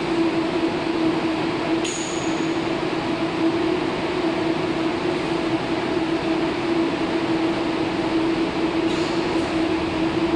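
Baltiets metro train standing with its doors open, giving a steady electrical hum over a constant hiss of equipment and ventilation. A sharp click with a brief high tone comes about two seconds in.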